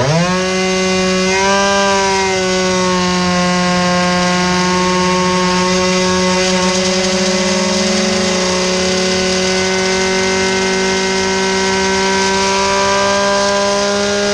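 Yamaha Jog 49 cc two-stroke scooter engine at full throttle on a roller dyno, its revs climbing quickly for the first second or two and then holding almost steady while the CVT shifts up. This is a power run with a new Polini 28 kg torque spring fitted to the transmission.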